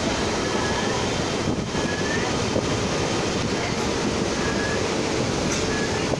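Chennai EMU suburban electric train running at speed, heard from its open doorway: a steady rush of wheel, track and wind noise, with brief high squeaks now and then.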